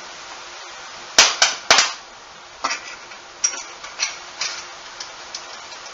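Sharp metal clicks and knocks from hand tools and engine parts being handled: three loud knocks in quick succession about a second in, then a scattering of lighter clicks.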